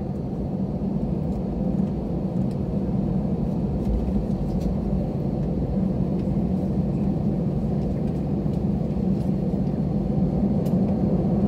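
Steady low rumble inside the cabin of an Airbus A320 taxiing, from its jet engines at low thrust and its wheels rolling over the taxiway.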